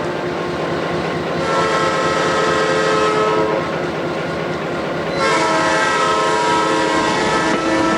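Train running on the rails with a steady rumble, and two long blasts of a multi-tone train horn: one about a second and a half in, another about five seconds in that carries on to the end.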